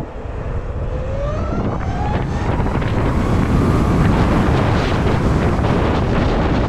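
LiveWire S2 Del Mar electric motorcycle accelerating hard: a thin electric drivetrain whine rises in pitch over the first two seconds. It is then buried under wind noise on the microphone that builds loud as the speed climbs and stays loud.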